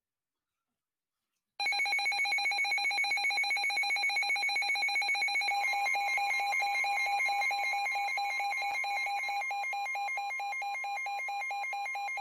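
NOAA weather radio's built-in alert alarm going off for an incoming warning: a loud, rapidly trilling electronic tone that starts suddenly about a second and a half in. About five and a half seconds in, a steady tone joins it, the broadcast's 1050 Hz weather alert tone.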